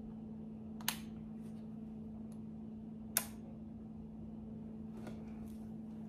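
Nikon Z30 camera being handled at its battery and memory-card compartment: two sharp plastic clicks, about a second in and a little past three seconds, then a few fainter taps, over a steady low hum.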